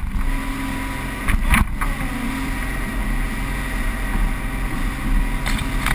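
Sterndrive (I/O) engine of a Seaswirl Striper 2101 fishing boat running steadily under way, with the hull thumping and splashing over small swells about a second and a half in and again near the end.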